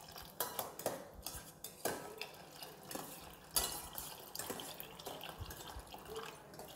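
Metal spoon stirring toor dal in a stainless steel bowl, clinking and scraping against its sides in irregular knocks, while water pours in from a jug.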